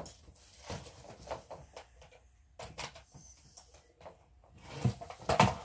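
Plastic plug and wire of a string of twinkle lights handled and plugged in: scattered small clicks and knocks with soft rustling, and a louder clatter of knocks about five seconds in.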